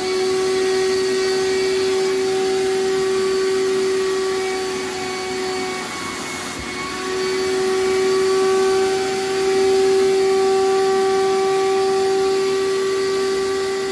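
Vacuum pump of a CNC vacuum table running with a very loud, steady hum and hiss, pulling vacuum through the table to hold a warped board down. About six seconds in the hum dips in level and wavers for a moment before steadying again.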